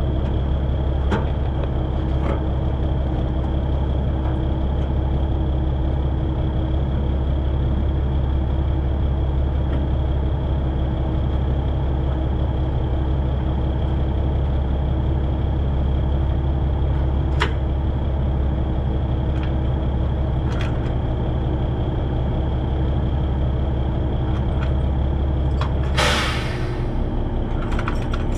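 Diesel engine of a 1964 Kenworth self-loading log truck idling steadily, with a few sharp clicks. Near the end comes a short, loud hiss of released air from the truck's air brake system, and the engine note changes after it.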